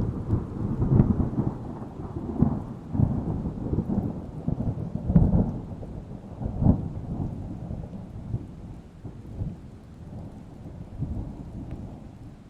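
A thunderclap rolling into a long rumble, with several sharper cracks in the first seven seconds, then slowly dying away.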